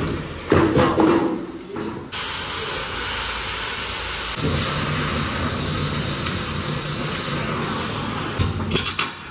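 Oxy-fuel cutting torch hissing steadily as it cuts through a steel stair stringer. The hiss starts abruptly about two seconds in, after a few sharp bangs, and stops shortly before the end.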